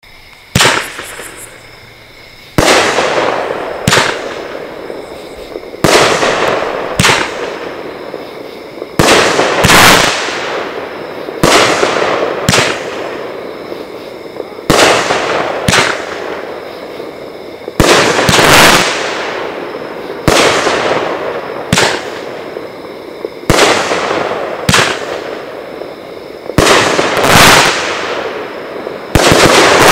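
A Pyro Demon Death Bomb 500-gram fireworks cake firing shot after shot, a new shot every two to three seconds. Each shot is a pair of bangs, the shell's lift and then its burst, followed by a long fading crackle and hiss from the willow, brocade and chrysanthemum stars.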